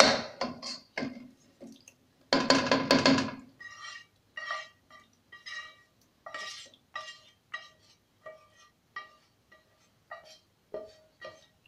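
Spatula scraping and knocking a metal frying pan as chicken mixture is emptied out of it: one loud scrape a couple of seconds in, then a run of short ringing taps on the pan, about one or two a second.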